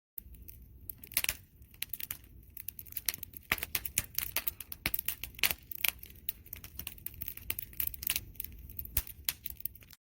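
Wood fire crackling, with irregular sharp pops and snaps over a low steady rumble of flame. The sound cuts out for a moment at the very start.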